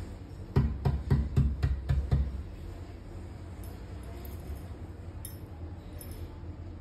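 A quick, even run of about seven dull knocks, roughly four a second, then light scattered clinks of the cake knife against the cake board and glass tabletop as the chocolate cake is cut.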